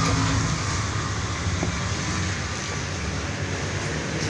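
A steady machine hum with a low droning tone over background noise, from an engine or motor running.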